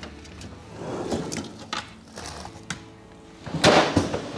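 Refrigerator freezer drawer and a foil-covered baking sheet being handled, with a loud sliding scrape about three and a half seconds in, over soft background music.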